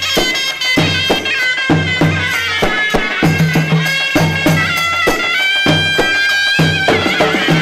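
Egyptian mizmar baladi (double-reed shawm) playing a loud, ornamented melody with sliding, wavering notes over a steady drum beat.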